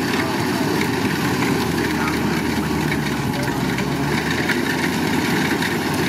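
Kubota DC-105X combine harvester running steadily as it cuts rice, its diesel engine and threshing machinery making a continuous, even rumble.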